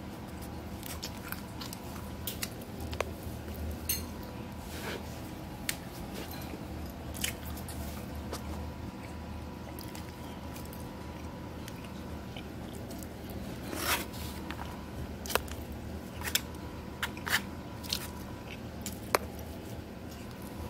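Scattered clicks and short crackles of a plastic fork working through rice in a foam takeout container, with one longer crackle past the middle, over a steady low hum.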